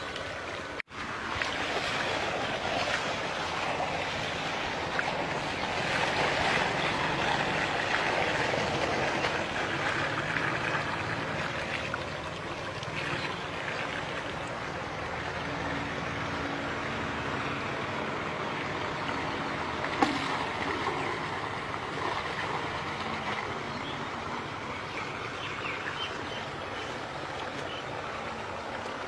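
Steady splashing and rushing of water, cutting out briefly about a second in.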